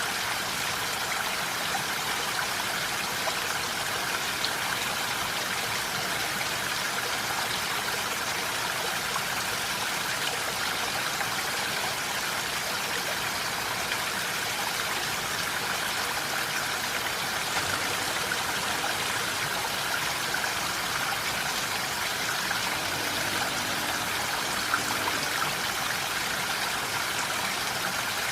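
Steady rain falling with an even hiss and scattered small drop ticks.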